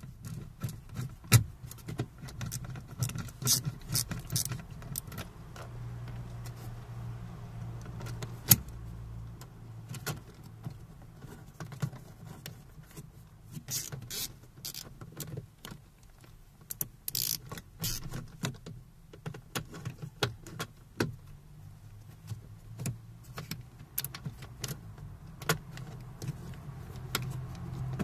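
Plastic door trim of a Renault Clio I clicking and knocking as the door panel and its pull handle are handled and fitted, in scattered sharp clicks with two louder knocks about a second and eight seconds in, over a low hum.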